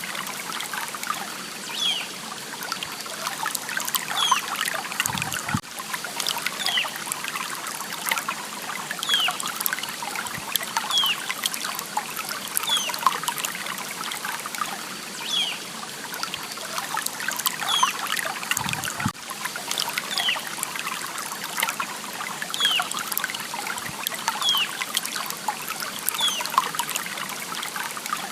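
Stream water trickling steadily, with a bird repeating a short falling call every second or two. Two soft low thumps come about five seconds in and again near eighteen seconds.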